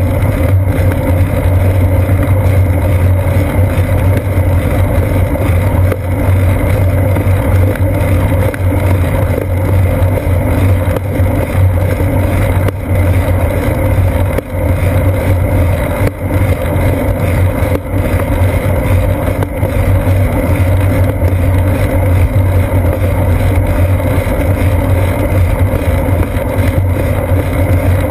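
Loud, steady rumble of a bicycle rolling on asphalt, picked up through a seat-post-mounted GoPro in its housing: road vibration mixed with wind noise.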